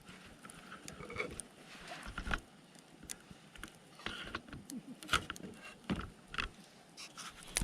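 Wood campfire crackling: firewood burning with irregular sharp pops and snaps over a soft hiss.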